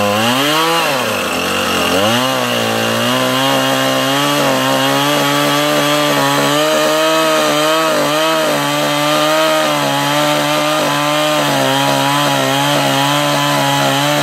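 Gas chainsaw revved up twice, then held at a steady full throttle for a long cut through dead mesquite wood, with the revs falling away near the end.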